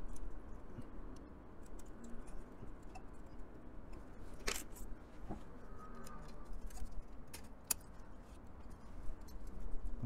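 Scattered small clicks and scrapes of a cooling fan's plastic frame and wire mounting clips against the fins of a be quiet! Dark Rock 4 tower CPU cooler as the fan is clipped on. The sharpest click comes about four and a half seconds in, with another near the end.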